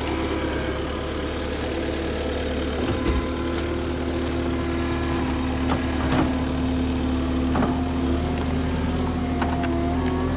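Cat 277D compact track loader's diesel engine running steadily under working load, its pitch shifting slightly as it works. Scattered short knocks and cracks from logs and branches being pushed by the bucket.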